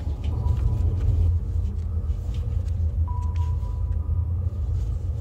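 Steady deep rumbling drone, with a faint ringing ping at the start and again about three seconds in.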